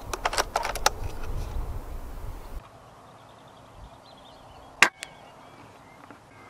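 A run of sharp clicks over rumbling handling noise for the first two and a half seconds. About five seconds in comes a single short crack, the shot of a moderated Walther Reign pre-charged air rifle, with a second sharper tap a fraction of a second after it.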